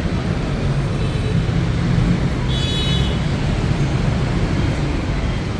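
Steady low rumble of street traffic, heard from an open-sided elevated rail station. A brief high beep sounds about halfway through.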